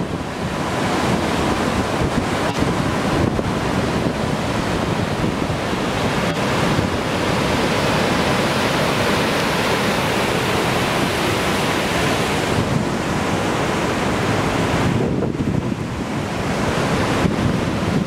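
Terraced Falls' whitewater cascades rushing steadily, with wind buffeting the microphone. The high hiss of the water thins briefly about fifteen seconds in.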